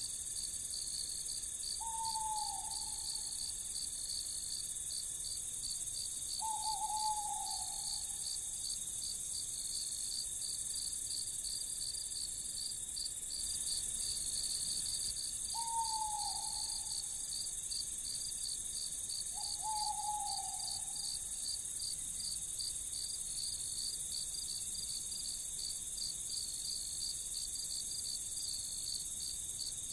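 Night ambience of crickets chirping in a steady, pulsing chorus over a high insect hiss, with an owl giving four short hoots that fall slightly in pitch, two in the first seven seconds and two more around the middle.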